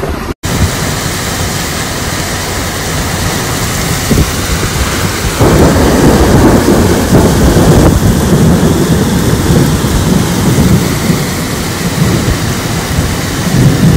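Loud, steady roar of muddy floodwater rushing through a rocky desert wadi. It grows louder and deeper about five seconds in, where the torrent pours down a rocky slope.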